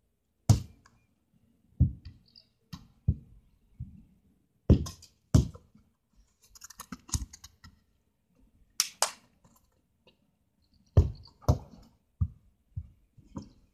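A football being kicked and bouncing on grass: a string of sharp thumps at irregular intervals, with a few louder kicks among quieter knocks.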